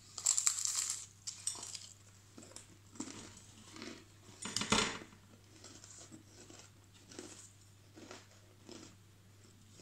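A crisp square cracker bitten off with a loud crunch, then chewed, crunching in short irregular bursts, with one louder sharp crack about halfway through.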